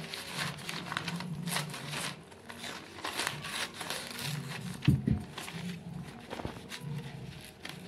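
Tailor's scissors snipping through folded newspaper, with the paper crinkling as it is handled. A louder knock comes about five seconds in.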